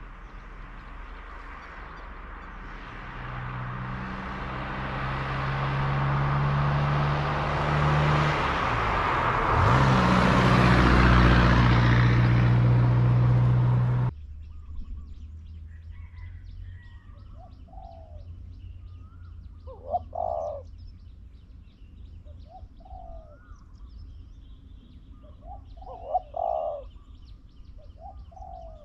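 A motor vehicle's engine grows louder over the first half and cuts off suddenly about halfway through. Then spotted doves coo, about five short low coos a few seconds apart, over faint high chirping.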